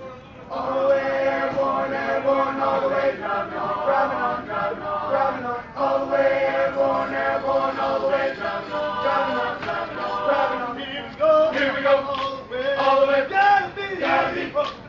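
A group of 82nd Airborne soldiers singing together in unison, loud, in long phrases with held notes and short breaks between them.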